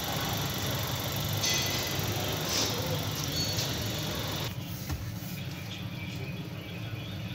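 2018 Honda Accord running, a steady low engine rumble under a broad hiss; the hiss thins out about four and a half seconds in.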